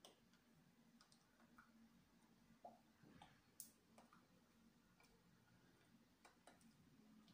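Near silence: room tone with a faint low hum and a few soft scattered clicks, the loudest about three and a half seconds in.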